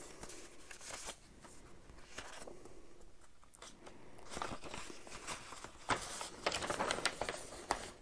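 Stiff printed paper-airplane template sheets rustling and sliding against each other as they are leafed through by hand. The handling gets crisper and busier, with quick flicks and crinkles, about six seconds in.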